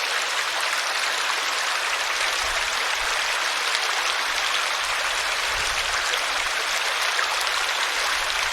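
River water flowing steadily, with faint scattered ticks of droplets.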